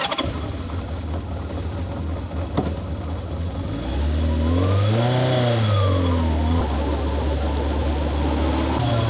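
Kawasaki Zephyr 750's air-cooled inline four-cylinder engine running steadily, revved once about five seconds in, the pitch rising and falling back before settling again.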